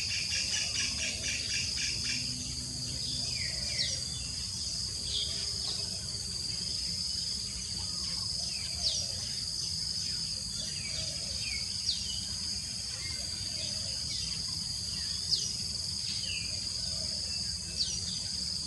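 Steady high-pitched insect chorus, with short sharp bird calls dropping in pitch every few seconds and a rapid ticking trill over the first two seconds.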